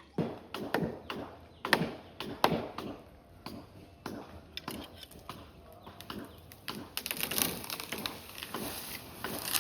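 Repeated sharp chopping strikes of a blade on wood, about two a second, with a hissing rustle rising near the end.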